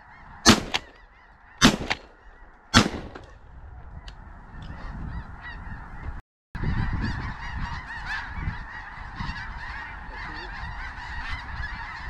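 Three shotgun blasts about a second apart, fired at geese overhead, over a large flock of geese calling continuously. The calling grows louder after about six seconds.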